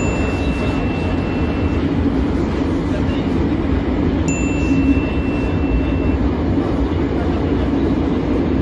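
Metro train running, a steady rumble inside the carriage. Two identical thin high tones sound over it, one at the start and one about four seconds in, each lasting about two seconds.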